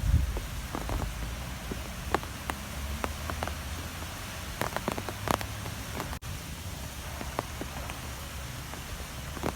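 Strong wind blowing, with a steady low rumble and scattered sharp ticks and taps throughout; the sound breaks off for an instant about six seconds in.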